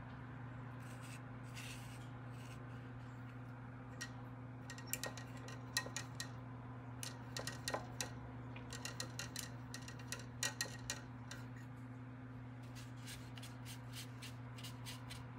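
Steady low electrical hum, with a scatter of light clicks and short rubbing sounds between about four and eleven seconds in as the gouache card and brush are handled on a cutting mat.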